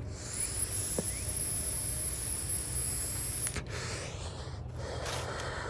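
Long draw on a nicotine vape: a steady airy hiss with a thin high whistle through the device, cutting off after about three and a half seconds, then a breath out about five seconds in.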